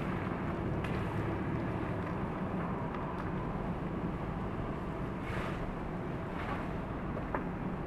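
Steady outdoor airport apron noise: a low rumble and hiss with a faint hum, and a few faint ticks. The parked Airbus A321's engine is covered, so the rumble is not its own engines running.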